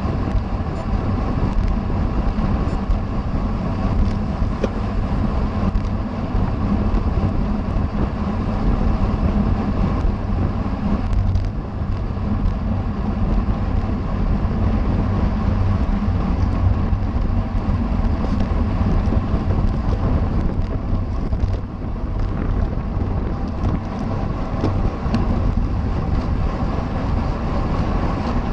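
Wind buffeting a camera's microphone while riding fast in a bicycle race: a steady, loud, low rumble, with the hiss of road and tyres under it.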